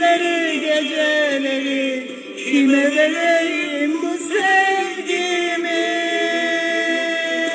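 A woman singing a Turkish song into a handheld karaoke microphone: bending, ornamented phrases, then one long held note over the last couple of seconds.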